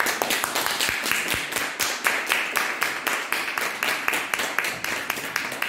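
Audience applauding, with many separate hand claps heard in a steady patter.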